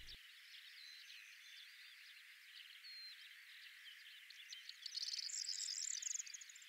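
Faint outdoor chorus of high chirps and trills from small wild animals, with a busier rapid trilling about five seconds in.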